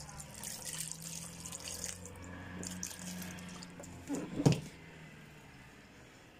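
Water pouring from a plastic bottle into a blender jar onto tomato paste and onion, splashing for the first couple of seconds. One sharp knock about four and a half seconds in.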